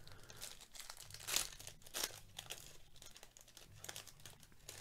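Foil wrapper of a Panini Prizm football card pack being torn open and crinkled by hand: irregular crackling rustles, the loudest about one and two seconds in.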